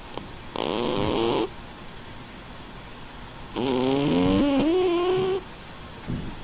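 Domestic cat snoring in its sleep: two snores, each with a wavering pitched tone, the second about twice as long as the first.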